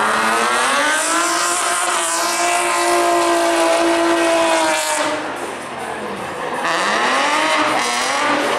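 Nissan 350Z's V6 engine revving hard through a drift. The revs climb and hold high and steady for a couple of seconds, drop off about five seconds in as the throttle comes off, then rise and fall again.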